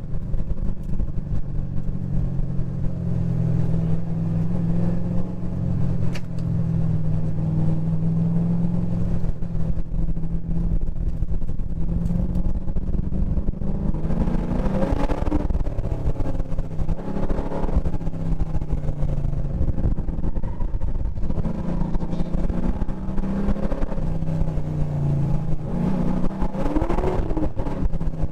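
LS7 7.0-litre V8 engine under hard driving, heard from onboard the car. It holds a fairly steady note, then climbs in pitch under acceleration twice, about halfway through and near the end.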